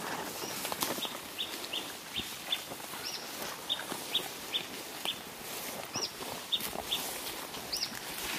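Birds calling in bush: a run of short, high chirps about two or three a second, with a few louder rising-and-falling notes, over the crackle of footsteps through dry grass.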